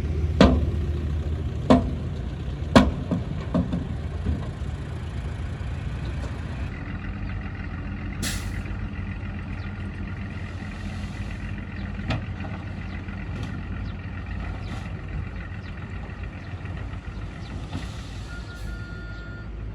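Bulldozer's diesel engine running steadily, with sharp clanks four or five times in the first four seconds and once more about twelve seconds in, and a short hiss about eight seconds in.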